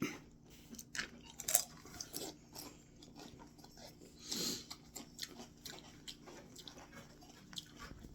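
A chip with salsa being bitten and chewed close by: irregular crisp crunches over several seconds.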